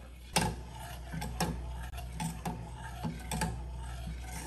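A ladle stirring a liquid mixture in a stainless steel saucepan, knocking and scraping against the pan's sides and bottom in about a dozen irregular taps, over a steady low hum.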